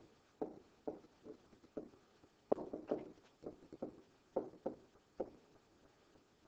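Stylus tapping on a digital writing surface as words are handwritten: about a dozen short, irregular taps and clicks as the pen touches down for each stroke.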